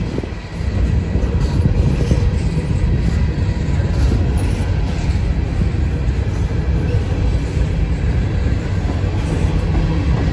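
Norfolk Southern freight train of high-sided gondola cars rolling past at close range: a steady, loud low rumble of steel wheels on the rails, with occasional faint clicks.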